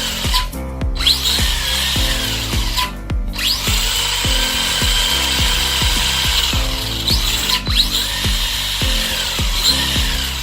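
Arrma Senton 4x4 RC truck's brushless motor and drivetrain whining as the throttle is worked on the bench, the pitch rising and falling and cutting out briefly twice in the first few seconds. Music with a steady beat plays underneath.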